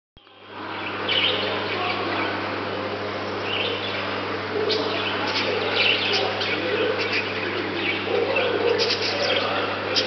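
Budgerigars chirping and chattering, with many short high chirps throughout, over a steady low hum.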